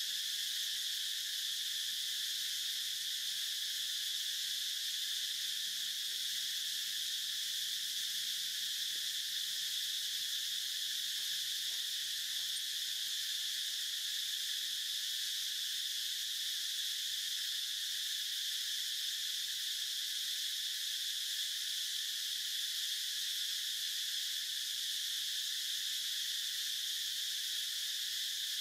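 Steady, high-pitched chorus of insects, unbroken and even in level.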